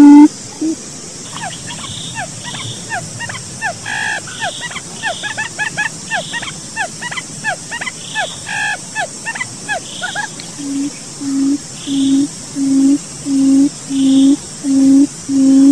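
Lure-call recording of puyuh hutan (barred buttonquail): deep hooting notes repeated evenly at about one and a half a second. Just after the start they give way to a long run of quick, falling chirps, and about ten seconds in the hoots return, growing louder.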